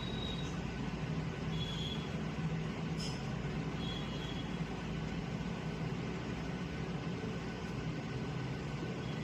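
Steady background hum and hiss with no speech, and a faint single click about three seconds in.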